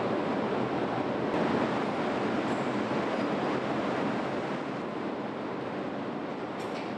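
A steady rushing noise that stays even, easing slightly in level about four seconds in.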